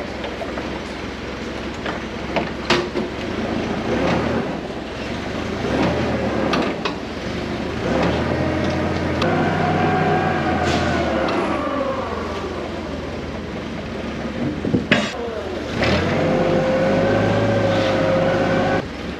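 Forklift engine running and working, with a whine that rises and falls in the middle and holds steady near the end, and a few sharp knocks.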